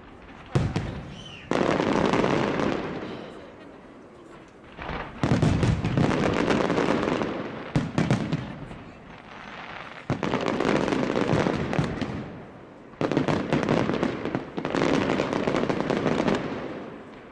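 Fireworks display: aerial shells bursting one after another with sharp bangs, each bang followed by a second or two of dense crackling and rumble that dies away. There are about seven bursts.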